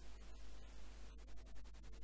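Faint background hiss and a steady low mains hum from the recording microphone, with many faint rapid clicks through it.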